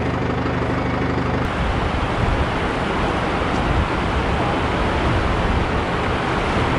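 A motor vehicle's engine running steadily, which stops being heard about a second and a half in, over a continuous rushing noise that then carries on alone and grows a little stronger.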